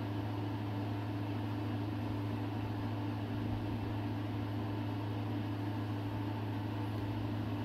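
Chopped ginger and garlic sizzling in hot oil in a wok as they are stirred with a wooden spatula, over a steady low mechanical hum.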